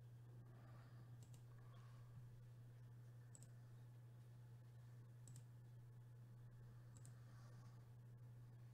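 Near silence: a steady low hum with a few faint, brief clicks about every two seconds.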